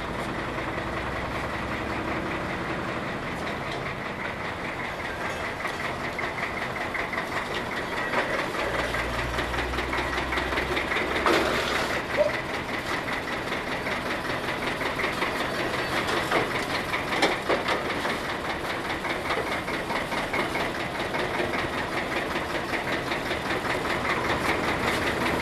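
A combustion engine running steadily at idle with a fast, even knocking beat, with a few sharp clanks and knocks around the middle.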